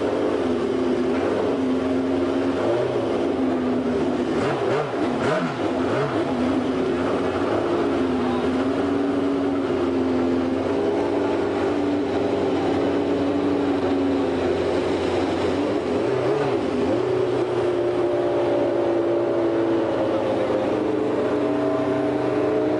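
Formula One car engine idling in the pits, its pitch wavering with quick throttle blips a few seconds in and again around sixteen seconds.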